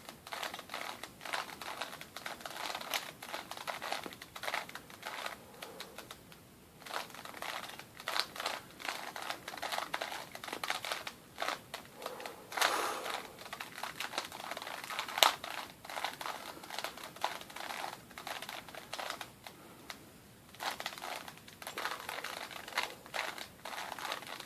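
Rubik's Cube layers being twisted by hand: plastic clicking and clacking in quick, irregular runs with short pauses, as the last layer's pieces are worked into place.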